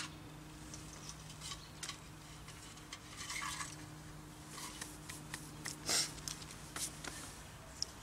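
Light clicks, cracks and rustles of hands handling dry twigs and kindling in a fire pit, with a louder rustle about six seconds in, over a faint steady low hum.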